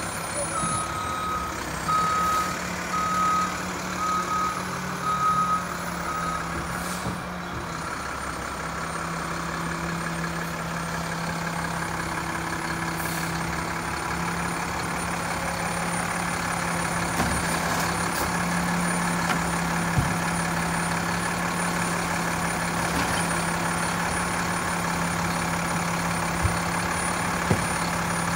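Mack LEU garbage truck's reverse alarm beeping about once a second for the first six seconds, over its diesel engine running steadily. A few light knocks come near the end.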